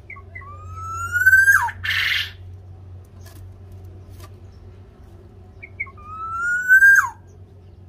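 Black-naped oriole calling twice, about five seconds apart: each call a whistle rising steadily for about a second, then snapping down in a sharp slur. The first call is followed by a short harsh noise, and a few soft chip notes come between. A steady low hum sits underneath.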